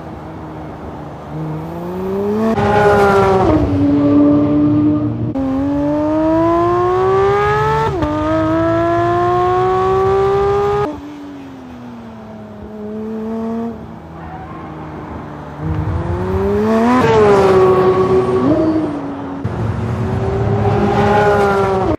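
2022 Porsche 911 GT3 (992) with its naturally aspirated 4.0-litre flat-six at high revs: revving hard through the gears, with a quick upshift about eight seconds in. Twice the car passes at speed and the engine note drops sharply as it goes by. The sound cuts abruptly between shots a few times.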